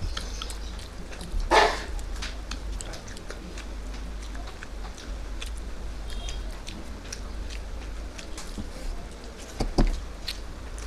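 Close-up eating sounds of someone eating fish and rice by hand: chewing and many small clicks and smacks as fish bones are picked out, with a louder burst about a second and a half in and another near the end.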